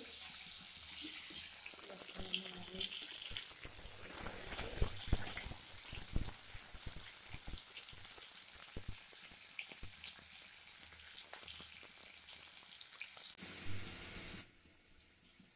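Potato pieces frying in hot oil in a metal kadai: a steady hissing sizzle, with a metal spatula knocking and scraping against the pan, most often a few seconds in. The sizzle cuts off near the end.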